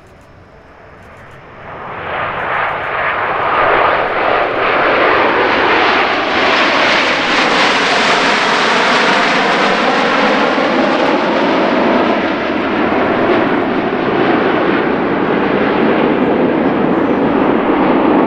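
A formation of nine Canadair CT-114 Tutor jets flying past, the rush of their single turbojet engines swelling in about two seconds in and staying loud, with a phasing sweep in its tone as they pass over.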